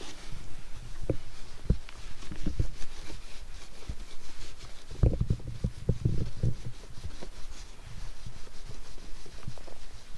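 Terry-cloth towel rubbing over a cat's fur, close up, a steady rustle with irregular soft low thumps from the handling, thickest about five to six and a half seconds in.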